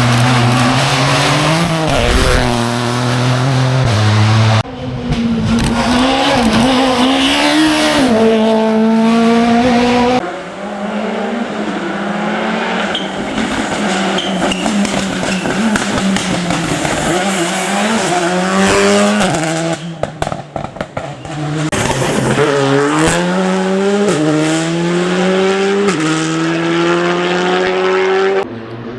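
Rally cars at full attack on a stage, engines revving hard and climbing through the gears with drops in pitch at each upshift, and tyres squealing. A brief run of sharp pops about twenty seconds in.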